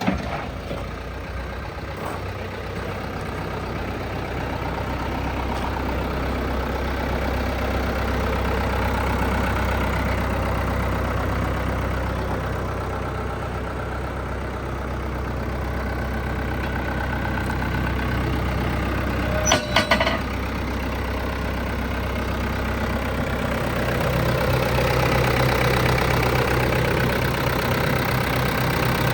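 Komatsu 140 backhoe's diesel engine running steadily, its level swelling and easing twice as the load changes. About two-thirds of the way through comes a brief, loud clatter.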